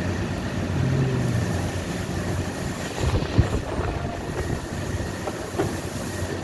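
Steady low mechanical hum, with a cluster of knocks and clatters about three seconds in as a handheld connector-slotting machine is worked against a workbench.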